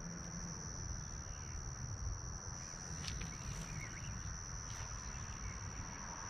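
A chorus of crickets trilling, a steady high-pitched tone that never breaks, over a low rumble.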